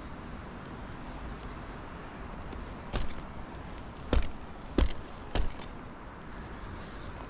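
Four sharp knocks, the middle two loudest, over steady outdoor background noise.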